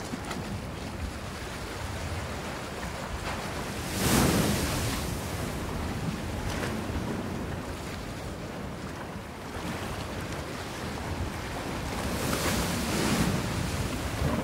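Steady outdoor rushing noise with no distinct events. It swells briefly about four seconds in and again around twelve to thirteen seconds.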